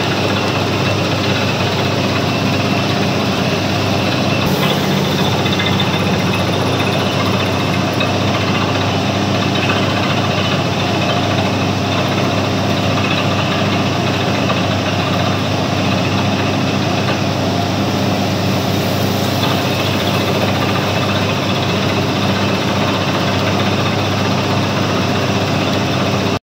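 Truck-mounted borewell drilling rig running steadily and loud, its heavy engine giving a dense, even mechanical noise with a steady low hum.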